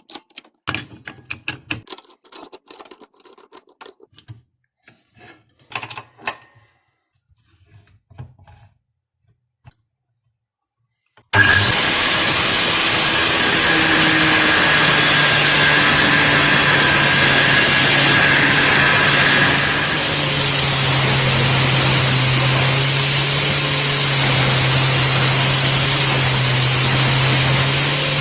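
Scattered clicks and knocks of parts being handled, then about eleven seconds in an angle grinder starts suddenly and runs steadily with a high whine over a low hum. Its level dips briefly once, a few seconds after it starts.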